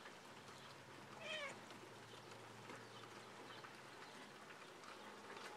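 Calico cat giving one short, wavering meow about a second in; otherwise near silence.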